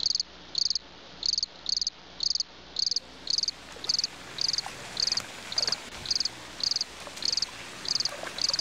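An insect chirping in a steady rhythm, short high chirps just under two a second.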